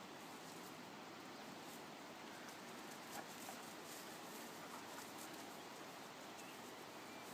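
Faint rustling and patter of several dogs trotting through tall grass and sniffing about, over a quiet steady hiss.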